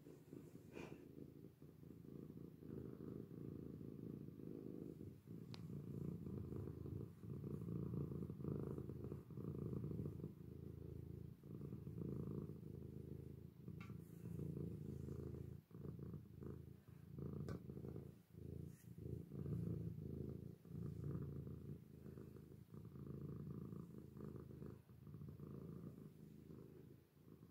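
Domestic tabby cat purring continuously while being stroked, a low rumble that breaks briefly every second or two as it switches between breathing in and out. A few faint clicks sound over it.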